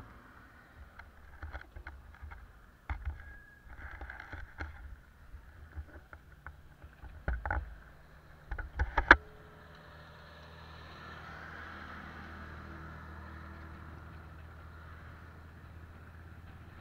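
Irregular knocks and rustles close to the microphone for about nine seconds, ending in one sharp, loud knock. After that a small motor scooter's engine runs steadily as it rides along.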